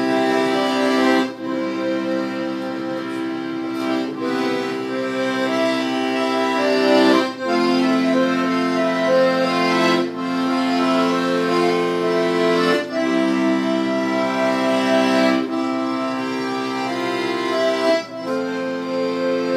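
Piano accordion playing held chords without singing, the chords changing every two to three seconds.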